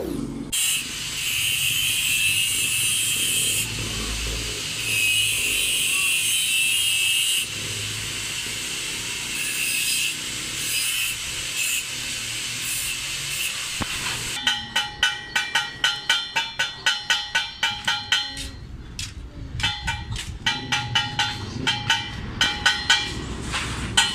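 A hand tool scraping the metal tube header of a radiator core: patches of steady rasping, then rhythmic back-and-forth strokes about two to three a second from about halfway through, with a short pause.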